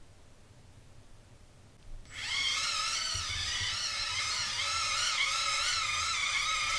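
Background music with several wavering sustained tones starts suddenly about two seconds in, after a quiet start.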